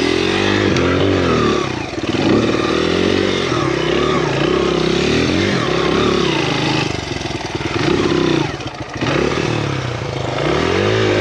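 Honda XR100's small four-stroke single-cylinder engine revved up and down over and over, its pitch rising and falling every second or two, as the bike struggles for grip on a steep, slick snowy climb.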